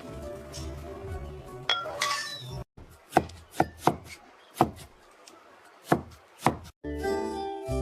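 Background music, then after a sudden cut, about six sharp kitchen clinks and knocks, each with a short ring and unevenly spaced. The music returns near the end.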